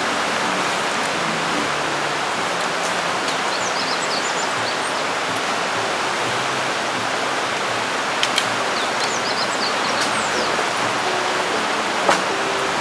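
Steady rushing of a flowing stream, with a few faint high chirps and a handful of sharp clicks, the loudest about twelve seconds in.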